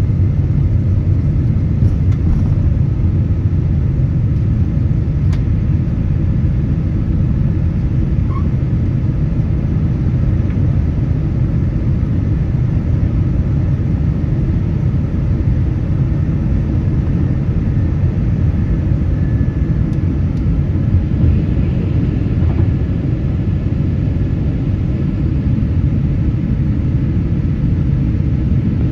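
Boeing 767-300ER jet engines at takeoff power, heard inside the passenger cabin as a steady, deep rumble.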